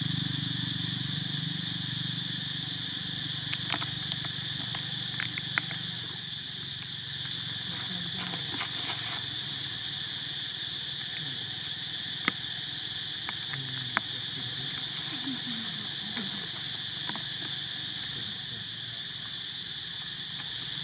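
Steady high-pitched drone of insects (cicadas or crickets) in the background, with a few scattered sharp clicks.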